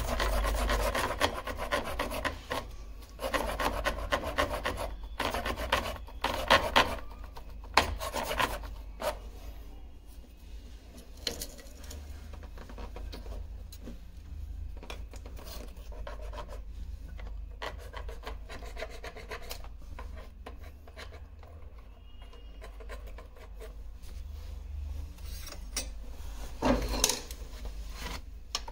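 Irregular rasping and scraping strokes of hand work on a hard surface, busier and louder in the first several seconds, then quieter, with one louder scrape near the end.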